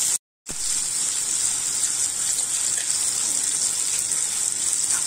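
Two eggs sizzling in hot oil and onion-tomato masala in a frying pan: a steady high hiss that cuts out briefly just after the start.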